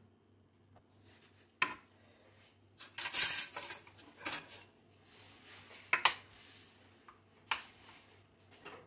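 A metal fork and spatula clink and scrape against a glass baking dish as duck legs are turned over in their cooking juices. There are several separate sharp clinks and one louder scrape a little after the first three seconds.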